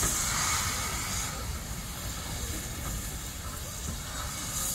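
Steam locomotive hissing steam a short way off, loudest over the first second and rising again near the end. A steady low rumble of wind on the microphone runs underneath.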